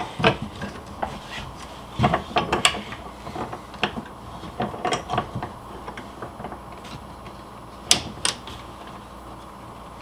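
Small bench vise being handled and its screw handle turned: scattered metal clicks and knocks, with one sharper click about eight seconds in.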